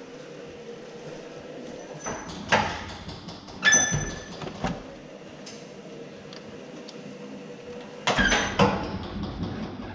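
Clunks and knocks of a car door being opened and handled, in a group about two to four seconds in with a brief metallic ring, and again near the end, over a faint steady hum.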